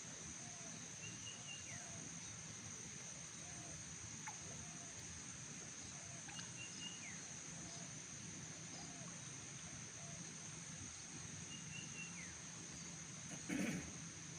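Outdoor ambience: a steady high-pitched insect drone, with a bird giving a short call that drops in pitch three times, about five seconds apart, over faint lower chirps. A brief loud scuffing noise comes near the end.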